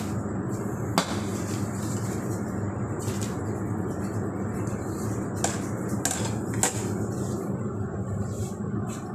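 Piston compressor running with a steady hum, with several sharp clicks or knocks at uneven intervals, the loudest about a second in.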